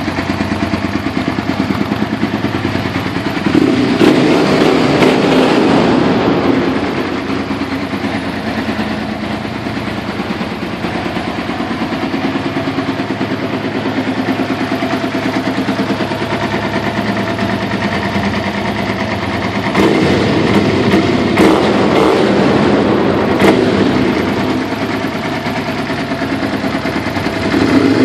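Suzuki SV650 645 cc V-twin engine with an aftermarket carbon-fibre slip-on exhaust, running at idle and revved up and held twice, about four seconds in and again around twenty seconds in.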